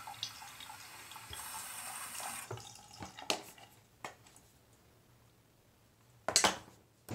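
Bathroom sink faucet running for about two and a half seconds, then stopping. After it come a few small clicks and knocks, and a louder knock near the end.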